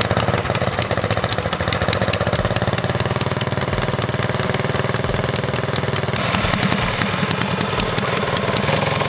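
Small Briggs & Stratton flathead single-cylinder engine running steadily at idle, with a rapid, even firing beat. The note shifts slightly about six seconds in.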